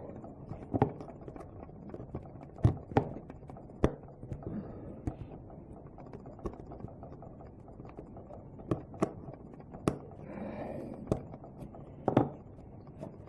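Irregular small clicks and light knocks of plastic and metal parts being handled: a drill's switch contacts and spring being fitted back into their plastic housing, with a brief faint scraping a little past the middle.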